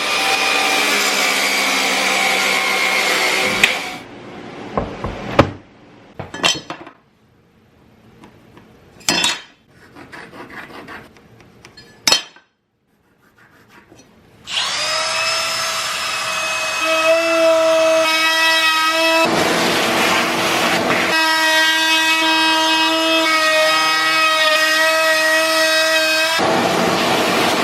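Woodworking power tools in short edited bits. A loud tool runs for about four seconds, a few scattered knocks and clicks follow, then a motor spins up to a steady high whine that runs on to the end.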